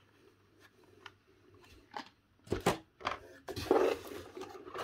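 Cardboard box and carded Hot Wheels blister packs being handled: a few sharp clicks and knocks of card and plastic about two seconds in, then a louder scraping rustle as a card is pulled out of the box.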